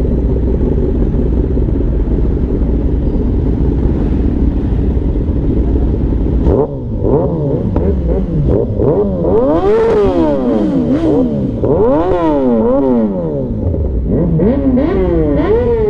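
Superbike engines running with a steady low rumble, then from about six and a half seconds in one is revved again and again, its pitch rising and falling in quick throttle blips.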